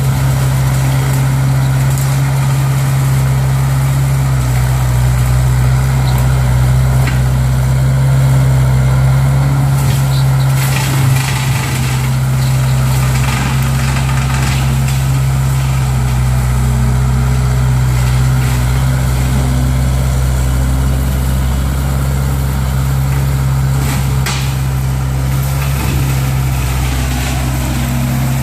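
Case 1845C skid steer's diesel engine running steadily under load as it drives a hydraulic brush cutter. Scattered sharp cracks and snaps, as brush breaks, come about ten seconds in and again near the end.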